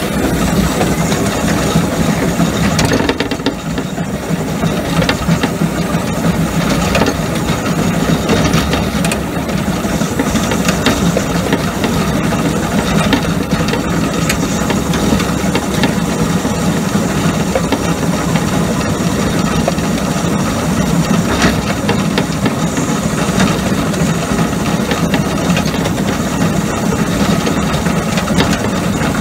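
Miniature steam locomotive running along the track, heard from the cab. A steady hiss and running noise, with frequent clicks and rattles from the wheels and running gear on the rails.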